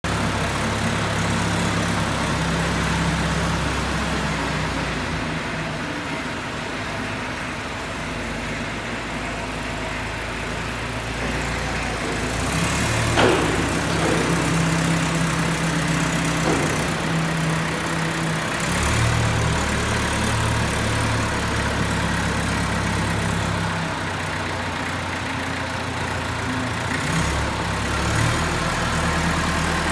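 Old Hyster forklift's engine running as it drives around, engine speed rising and falling several times. A brief sliding squeal comes about halfway through.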